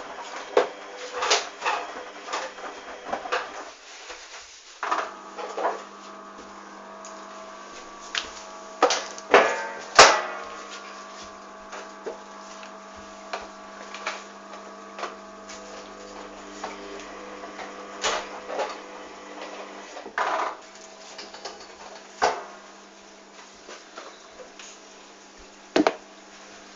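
Hoover DYN 8144 D washing machine turning its drum during a wash, its motor humming steadily, with irregular thuds and clunks of the wet load tumbling. The motor pauses briefly about four seconds in and starts again, as the drum changes direction.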